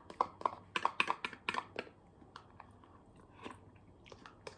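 Eating custard pudding from a plastic cup: a spoon clicking and scraping against the cup, with mouth sounds of eating. A quick run of small clicks in the first two seconds, fewer after.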